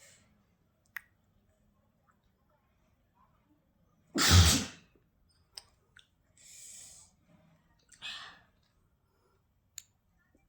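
A single loud, short sneeze about four seconds in, followed by softer breathing sounds.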